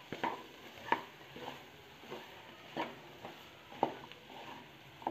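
Wooden spatula stirring peas and paneer in a nonstick kadhai: soft scrapes and light knocks against the pan, roughly once a second.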